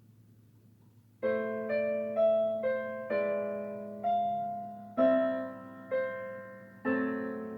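Piano chords begin about a second in, each one struck sharply and then fading, in a slow, even pattern.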